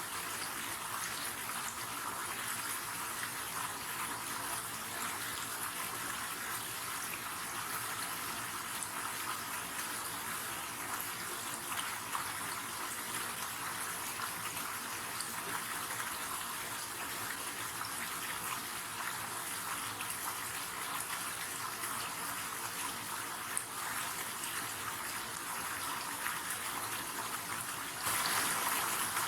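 River water flowing steadily, an even rushing noise that gets a little louder about a second before the end.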